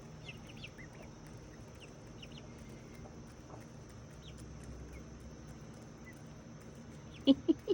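Baby chicks peeping faintly and sporadically with short high chirps, then a few louder short calls close together near the end.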